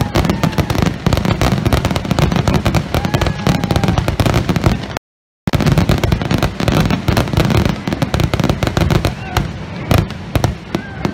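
Aerial fireworks display with many shells going off in quick succession: a dense run of bangs and crackling, with a few brief whistles. The sound cuts out completely for about half a second around the middle.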